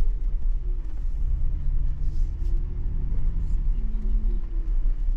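2021 Ford Bronco Badlands engine running at low speed as the truck crawls over a rocky trail: a steady low rumble, with faint engine tones that rise and fall a little.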